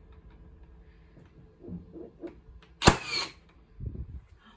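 Hikoki nail gun firing once about three seconds in: a single sharp crack with a short ringing tail as it drives a nail into the gate timber, followed by a few low knocks.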